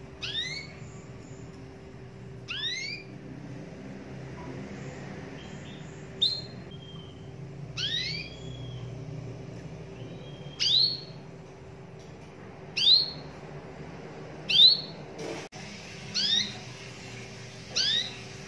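Domestic canary giving short rising call notes, about nine in all, one every two seconds or so, rather than a continuous rolling song.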